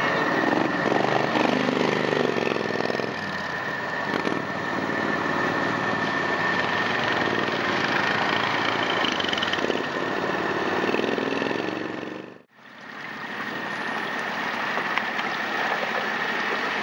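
Engines of Max II six-wheel amphibious ATVs and quad ATVs running as they drive, rising and falling in pitch in the first few seconds, over a steady high whine. About twelve seconds in the sound drops out briefly, then the engines come back.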